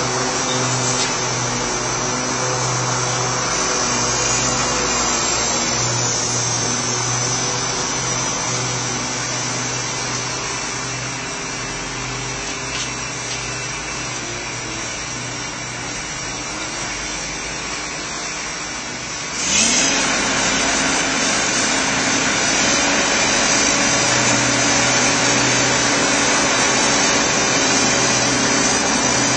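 John Deere backhoe loader's diesel engine running steadily at a construction dig. About two-thirds of the way through the sound gets suddenly louder and the engine pitch rises as it revs up.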